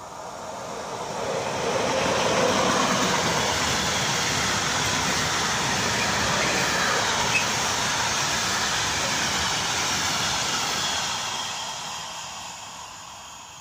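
Container freight train passing at speed close by: the noise swells as the locomotive arrives, then holds as a steady rumble and clatter of the wagons' wheels on the rails, and fades near the end as the last wagons draw away.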